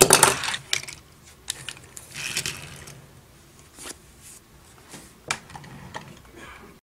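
A Hot Wheels die-cast car clatters onto a hard tabletop at the start with a few quick knocks. After that there are scattered small clicks and taps as the toy cars and plastic trucks are handled.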